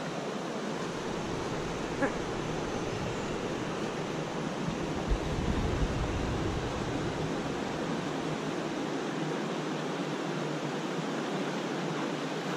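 Steady rushing of creek water, with a few low wind bumps on the microphone around the middle.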